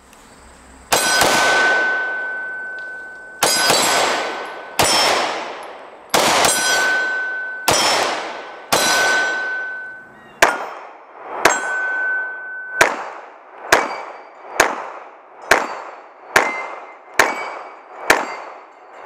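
Steel targets being hit by pistol rounds: about sixteen sharp clangs, each ringing out and fading. They come more than a second apart at first and about once a second in the second half.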